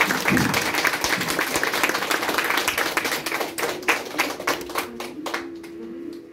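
Audience clapping in applause, thinning to a few scattered claps and dying out near the end.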